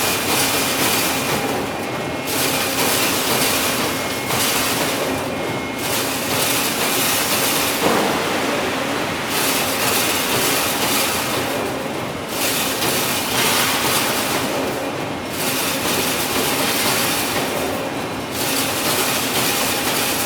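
Wire fence-making machine running, a continuous metallic clatter that thins out in a regular cycle about every three seconds, with one sharp knock partway through.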